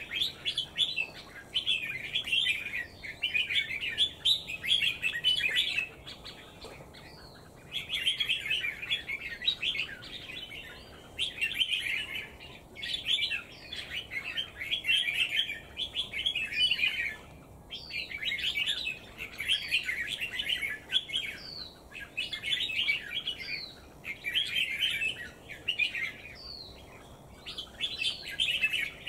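A bird chirping in rapid, chattering phrases a second or two long, with short pauses between them.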